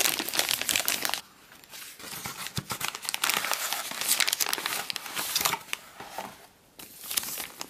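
Crinkling and rustling of an MRE flameless ration heater's plastic sleeve and the foil entree pouch as they are handled and the hot pouch is pulled out, in irregular bouts with a short pause about a second in and another near the end.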